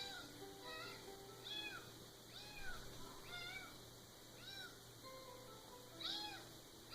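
Recorded cat meows played back, a string of faint meows about once a second, each rising and then falling in pitch, with a few steady held tones beneath them.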